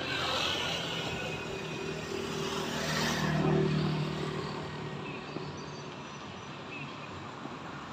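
A motor vehicle passing by, its engine and road noise swelling to a peak a few seconds in and then fading away.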